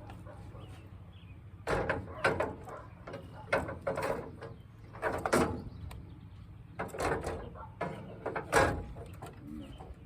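Handling noises from refuelling a string trimmer: about eight short scrapes and rustles, irregularly spaced, over a low steady hum.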